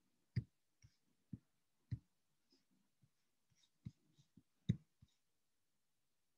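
Computer mouse clicking: about a dozen faint, irregular clicks, each with a dull low knock, the loudest about two-thirds of the way through. The clicks stop for the last second or so.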